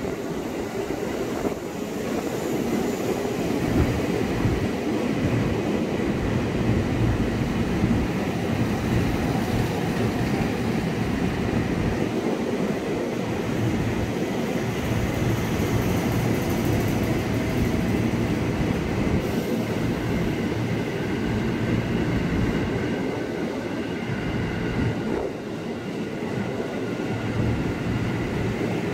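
KRL commuter electric multiple unit rolling slowly past along the station platform: a steady rumble of wheels on the rails and running gear, with a faint high whine over it.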